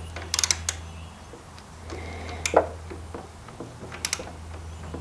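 Click-type torque wrench tightening a handlebar riser bolt: a quick run of ratchet clicks early, a single knock midway, and a sharp double click about four seconds in as the wrench breaks over at its set torque, marking the bolt as fully torqued.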